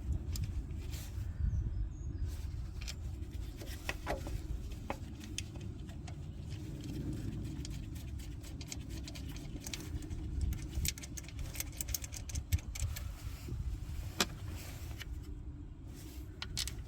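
Scattered small metallic clicks and taps as 10mm bolts are fitted through an engine coil pack and threaded in by hand, over a low steady rumble.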